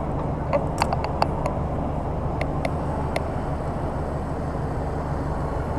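Fuel being pumped through a gas pump nozzle into a motorcycle tank: a steady low hum and rush, with a few light clicks from the nozzle around one second in and again around three seconds in.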